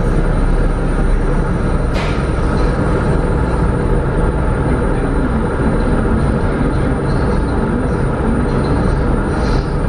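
Car ferry's engines running with a steady low rumble while the ship moves through calm water, with a single sharp click about two seconds in.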